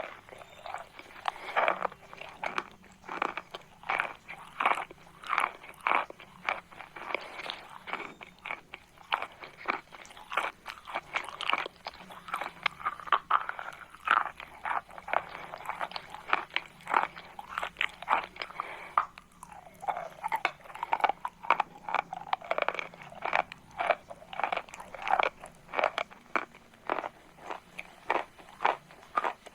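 Chalk crunching close to the microphone: a long run of sharp, dry crunches, several a second, with a brief pause about two-thirds of the way through.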